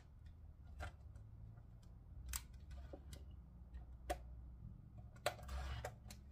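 Sharp light clicks and taps of metal and plastic parts as a car-stereo mounting cage is handled and adjusted by hand, about four clear clicks with smaller ticks between and a short rustle near the end, over a faint low hum.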